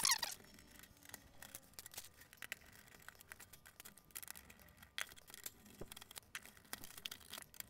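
Faint, scattered small clicks and taps of metal parts and tools being handled while the electronic receiver is taken apart.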